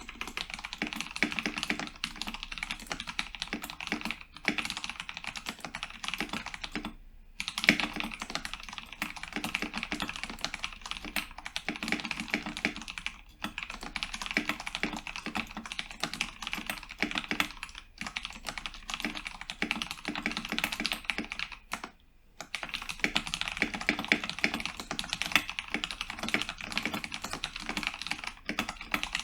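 Continuous fast typing on a Cooler Master MasterKeys Pro S mechanical keyboard with modded Cherry MX Brown tactile switches: a dense run of keystroke clacks, broken by brief pauses about 7 and 22 seconds in.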